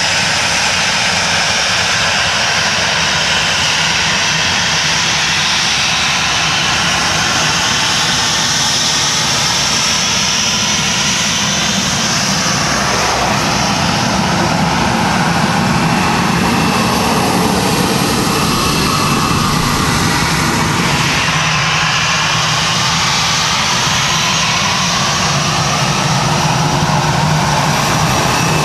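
Jet airliner engines running loud and steady at close range: a constant rush with sliding whining tones that shift in pitch partway through.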